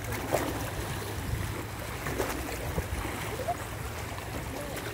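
Small waves washing against the rocks of a shoreline, with a couple of louder washes, over a steady low rumble of wind on the microphone.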